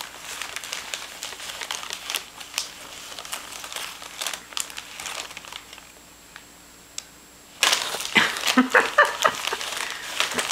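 Christmas wrapping paper and tissue paper rustling and crinkling as it is handled, growing louder and busier for the last few seconds.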